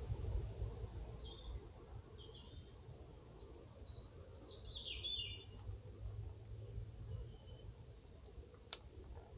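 Small woodland songbirds calling: scattered short, high chirps, and a quick run of notes falling in pitch about four seconds in. One sharp click near the end.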